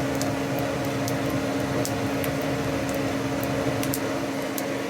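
Electric forge blower fan running with a steady hum, driving air into a coal forge fire, with a few faint crackles scattered through it from the wood kindling burning on the hearth.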